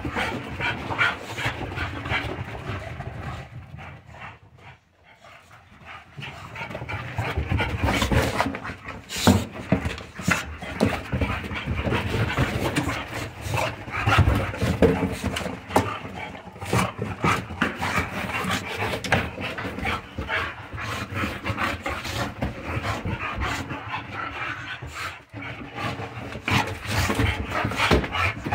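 American Bully dogs play-wrestling: heavy panting and scuffling, with frequent knocks and scrapes of paws and bodies, and a brief lull about five seconds in.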